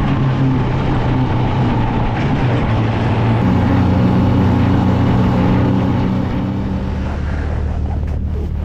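Snowmobile engine running at speed, mixed with wind noise. The engine pitch rises about three seconds in, then drops to a low idle near the end as the machine slows to a stop.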